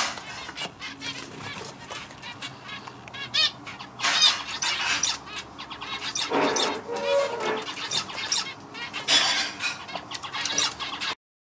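Male zebra finch singing: quick runs of short, buzzy and nasal notes repeated in phrases, which cut off suddenly just before the end.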